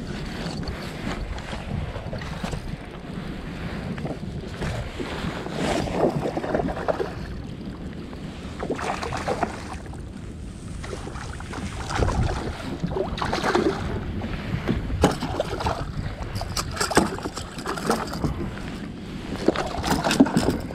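Water lapping and splashing around a plastic fishing kayak, with wind buffeting the microphone and irregular knocks from the hull and tackle. Near the end a hooked salmon splashes at the side of the kayak as it is pulled from the water.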